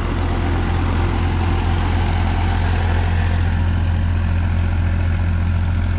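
Powertrac Euro 50 tractor's three-cylinder diesel engine running steadily under load at about 1800 rpm, driving an 8-foot rotavator through the soil in low first gear.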